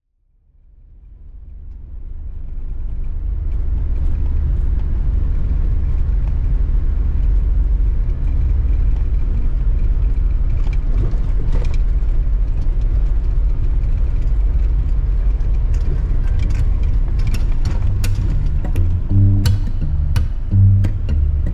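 A 4x4 driving on a rough dirt track, heard from inside the cab as a steady low rumble that fades in at the start, with a few sharp knocks along the way. Guitar music comes in near the end.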